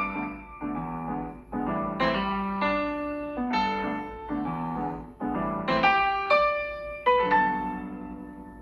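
Solo piano playing a slow piece: a melody over low chords, each struck note dying away, with the last chord about seven seconds in left to fade out.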